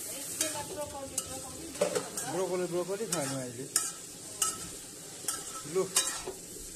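Carrots, broccoli and celery sizzling in a hot wok while a metal spatula stirs and scrapes them against the pan. The scrapes come about ten times, at uneven intervals, over a steady frying hiss.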